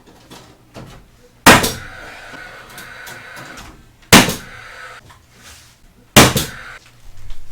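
Three loud, sharp strikes about two seconds apart as nails are driven to fasten a board to wood framing. The first strike is followed by a ringing that lasts a couple of seconds.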